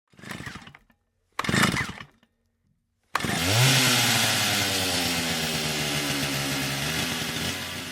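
Two short bursts of noise, then a motor starts about three seconds in, its pitch rising as it spins up, and runs steadily with a strong hiss.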